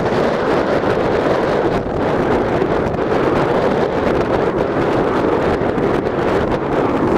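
Strong wind blowing across the camera's microphone: a loud, steady rush of noise that never lets up.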